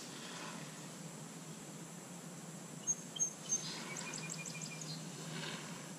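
A small bird chirping: three short, high chirps about halfway through, then a quick trill of repeated notes. Under it runs a steady, high insect drone.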